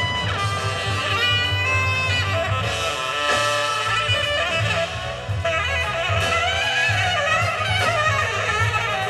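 Jazz record played through Altec 604E coaxial loudspeakers driven by a single-ended 300B tube amplifier: horn lines with saxophone over a steady bass.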